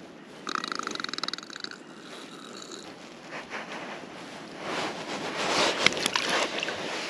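Water splashing in rocky shallows as a brown trout is lowered into the water and released, with sharp splashes loudest about six seconds in. Near the start, a short buzzing, pulsing sound lasts about a second.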